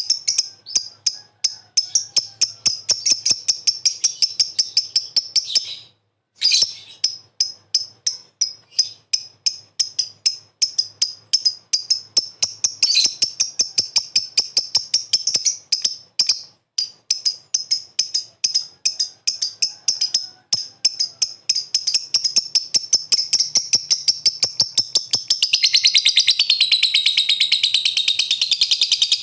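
Lovebird singing its long 'ngekek' chatter: a long run of rapid, evenly repeated shrill chirps with a short break about six seconds in. Near the end the chirps run together into a denser, continuous chattering.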